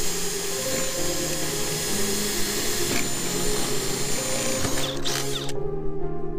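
Power drill with a 1/4-inch bit running steadily as it bores out a screw hole in a paint-pole tip, stopping about five and a half seconds in.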